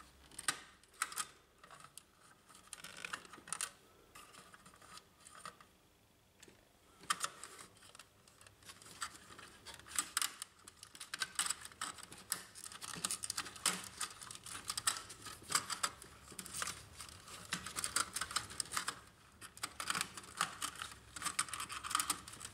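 Small clicks and rustles of fingers working a flat ribbon cable and thin wires out of the plastic clips on a Brother HL-1110 laser printer's laser unit. The clicks are sparse at first, with a short quiet gap, then come thick and almost without pause from about seven seconds in.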